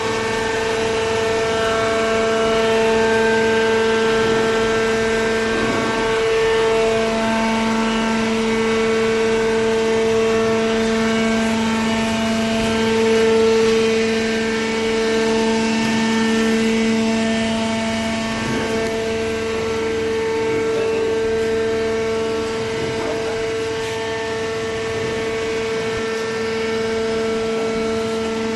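Automatic-tie cardboard baler running: a steady machine hum with a fixed whining tone.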